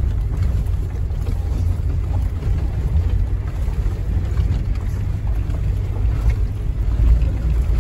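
Steady low rumble of a car's engine and tyres heard from inside the cabin while driving on an unpaved dirt road.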